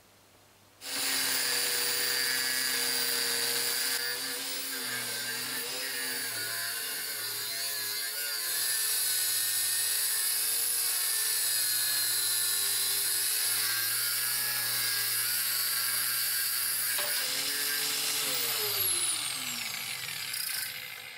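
Angle grinder with a thin abrasive cut-off wheel starts up about a second in and cuts through a steel plate, a loud steady high-pitched grinding hiss over the motor's whine. Near the end the grinder is switched off and its motor winds down with a falling whine.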